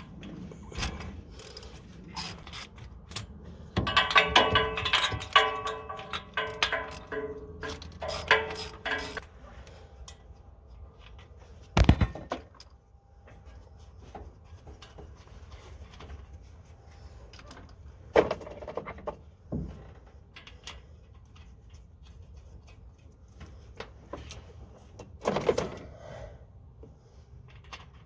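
Socket ratchet clicking in quick runs while spark plugs are turned in on a small-block Chevy 350 V8, with a few sharp knocks of tools against metal.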